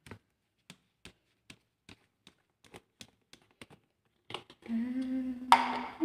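Small, sharp ticks and taps, about two a second, from handling and pouring a plastic bottle of liquid detergent over a washing machine. Near the end a woman's voice hums a held note.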